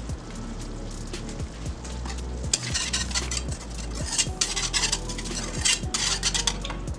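A metal wire whisk stirring thick flour-and-stock chicken gravy in a nonstick skillet, with quick scraping and clicking against the pan from about two and a half seconds in.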